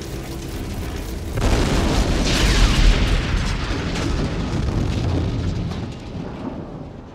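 Steady drone of a plane's piston engines in the cockpit, then about a second and a half in a sudden deep whoosh and rumble of an engine fire bursting into a fireball, swelling and dying away over a few seconds.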